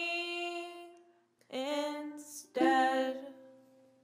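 A woman's voice singing long held notes: one note dying away, then two more, with a breath between them. The last note fades out as the song ends.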